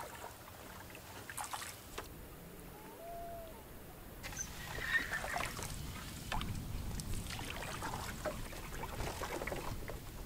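Water trickling and sloshing around a paddled canoe, with drips and small splashes from the paddle.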